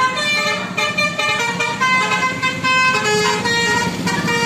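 Indonesian 'telolet' bus horn: a multi-tone horn playing a quick tune of changing notes, several tones sounding together, over the bus's engine running.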